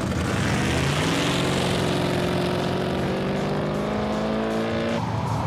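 Big Red, a 2,000-horsepower 1969 Camaro race car, accelerating hard, its engine note climbing steadily in pitch. The note breaks off abruptly about five seconds in and gives way to a rougher, noisier sound.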